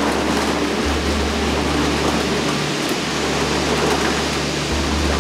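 Steady rain falling, an even hiss, over a low held hum that shifts about a second in and again near the end.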